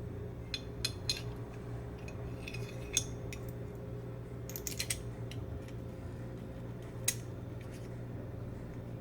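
Metal parts of a Llama Especial .32 ACP pistol being handled during field stripping or reassembly: scattered sharp metallic clicks and clinks, some in quick clusters, over a steady low hum.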